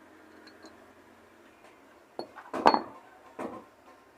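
Steel rocker arms and rocker pin from a Honda CG 125 cylinder head clinking and knocking together as they are handled. A few sharp clinks from about two seconds in.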